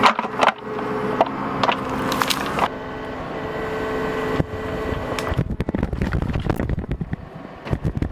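Bobcat mini excavator's diesel engine running steadily under load while it tears out a tree. A few sharp cracks come in the first half, and a rapid, dense crackling and clatter of breaking wood follows from about halfway on.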